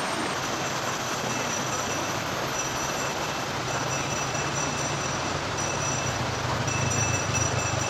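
Steady rushing water noise with a low, steady hum underneath that grows a little louder near the end.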